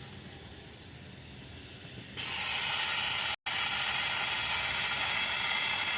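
Low rumble of an Amtrak train led by a P42 Genesis diesel passing. About two seconds in, a radio scanner breaks in with loud hissing static, which cuts out for an instant and then comes back.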